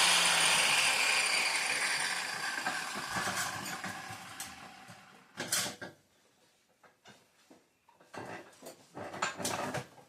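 Power tool, likely an angle grinder, spinning down after being switched off, its hiss fading over about five seconds, followed by a few short knocks and scrapes of metal being handled.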